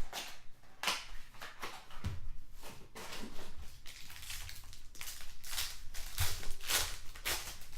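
Trading-card pack wrapper and cards being handled and opened by hand: a steady run of short crinkles, rustles and scrapes, busiest near the end.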